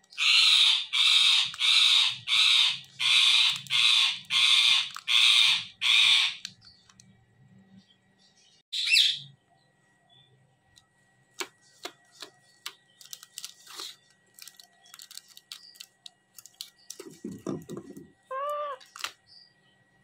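Indian ringneck parakeet screeching: a run of about nine loud, harsh squawks in quick even succession over the first six seconds, then one more a few seconds later. After that come light clicks of its beak picking at objects, a low muffled thump, and a short whistled call near the end.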